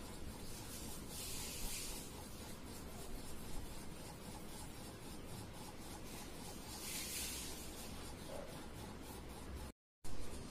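Scratchy rubbing of colour being shaded onto paper with quick back-and-forth strokes, with two louder stretches of hiss, about a second in and about seven seconds in.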